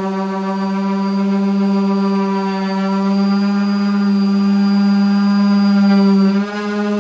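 Electric random orbital sander running steadily against the plywood of a speaker cabinet, giving a loud, even, pitched hum. The note dips and bends briefly about six and a half seconds in, then steadies again.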